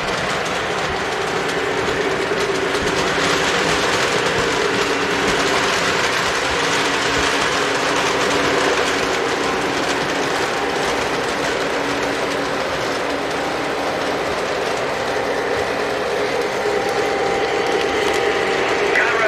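Model train locomotives running on the layout track: a steady whir of electric motors and gears under the rolling of the wheels on the rails.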